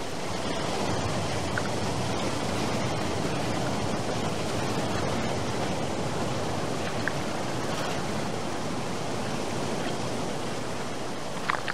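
Water sloshing and splashing against a camera held at the water's surface, a steady rushing noise with a few faint small clicks.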